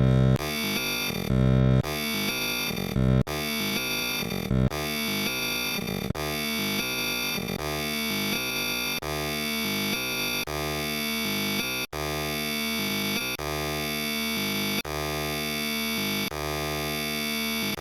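A digitally processed, synthetic-sounding sound effect replayed over and over, each loop lasting about a second and a half. It is a dense, buzzy set of held tones, mangled far from the original by repeated processing.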